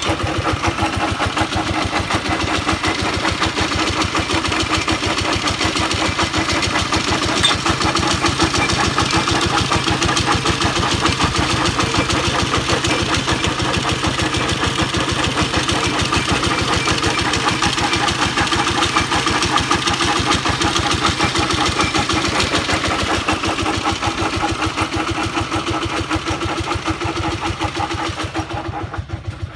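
Single-cylinder diesel engine of a công nông farm truck running steadily with a fast, even chugging. It quietens near the end.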